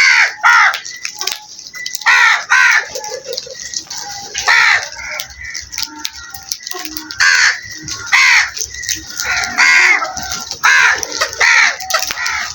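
A flock of crows cawing: loud, harsh caws repeated every second or two, some in quick pairs, with fainter caws from other birds in between.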